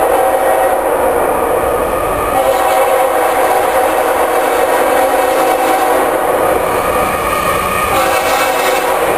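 Diesel freight locomotive's air horn sounding long blasts, several notes at once, as the train approaches, with a low rumble of the train beneath. The horn chord shifts about two seconds in and again near the end.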